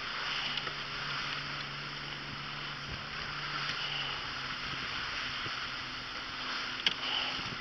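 Small boat moving over open water: a steady rush and splash of water along the hull over a low, steady engine hum, with one sharp click near the end.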